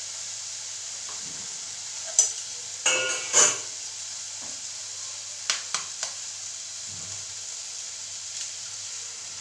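Fiddlehead fern greens frying in an aluminium pot with a steady sizzle. A steel ladle stirs and knocks against the pot, loudest around three seconds in, with a few sharper clicks around five and a half to six seconds.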